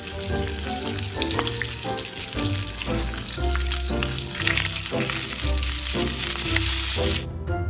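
Bacon, a fried egg and cherry tomatoes sizzling in a frying pan, with background music underneath; the sizzling cuts off suddenly near the end.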